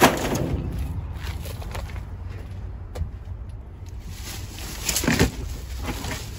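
A thump right at the start, then plastic trash bags rustling as they are handled about five seconds in, over a steady low rumble.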